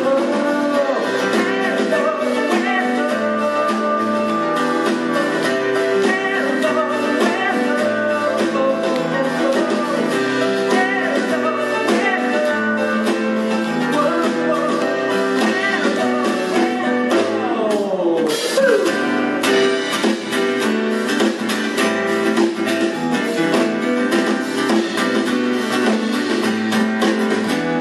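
A man singing live while playing a steel-string acoustic guitar.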